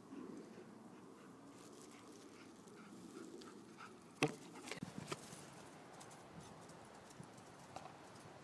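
A German Shorthaired Pointer comes back close by, faint against the background, with a sharp click about four seconds in followed by a few softer knocks.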